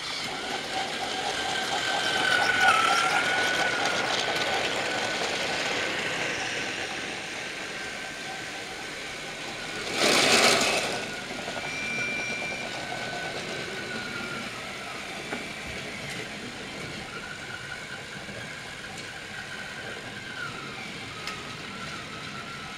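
Battery-powered TrackMaster motorized toy train running on plastic track, its small motor whining steadily with a slightly wavering pitch. About ten seconds in, a loud noise lasting about a second rises over it.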